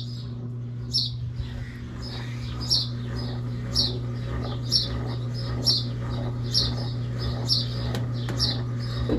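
Brastemp Double Wash washing machine humming steadily on its intermediate spin, with a short, high, bird-like chirp repeating about once a second over the hum.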